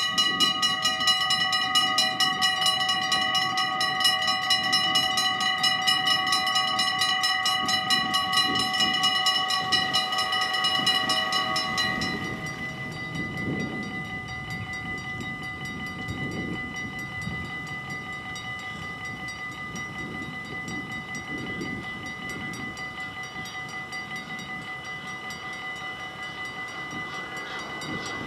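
Dutch level-crossing warning bells ringing rapidly and steadily. About twelve seconds in, once the barriers are down, the bells drop to a quieter level. Near the end the rush of an approaching train rises under them.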